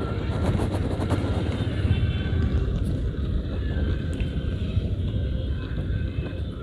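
A motorcycle riding along, a steady low rumble of engine and wind buffeting on the camera microphone.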